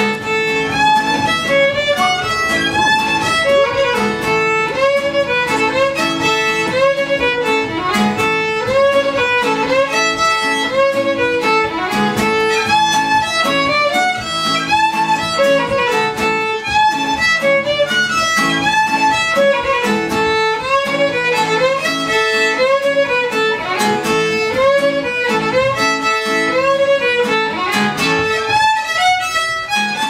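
Old-time string band music: a fiddle playing a lively, repeating melody over plucked string accompaniment and an upright bass.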